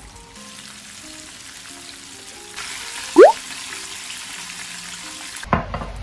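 Battered chicken deep-frying in a small pot of oil: a steady sizzle that gets louder about two and a half seconds in. Just after the middle comes a short, loud rising squeak, and near the end the sizzle cuts off and there is a knock. Soft background music plays underneath.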